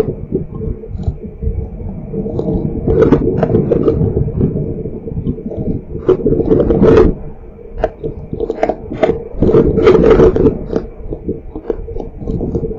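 Strong wind and heavy rain buffeting an outdoor CCTV camera's microphone in loud rising and falling gusts, with many sharp knocks and rattles.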